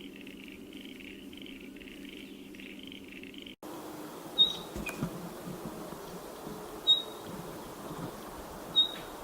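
Spotted pardalote calling: three short, sharp high piping notes about two seconds apart. Before them comes a soft, buzzy pulsing at about two pulses a second, and the sound changes abruptly between the two.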